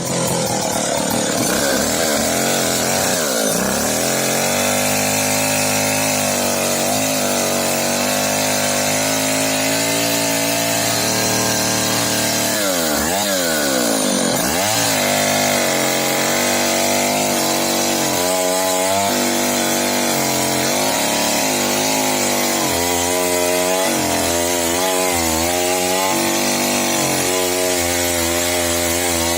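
Stihl Contra two-stroke chainsaw running continuously while cutting firewood. Its engine pitch dips and climbs as it is throttled and loaded in the wood, with deep dips a few seconds in and about halfway, and repeated wavering in the second half.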